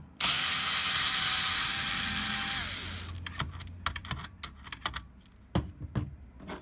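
Power screwdriver with a Torx T10 bit backing out a motherboard screw: the motor runs with a steady whine for about two and a half seconds, then winds down. A run of light clicks and taps follows.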